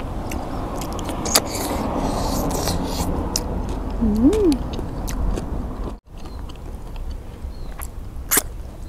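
Cooked river-snail shells clicking as they are handled and sucked for their meat, over a steady rumbling noise that cuts off abruptly about six seconds in.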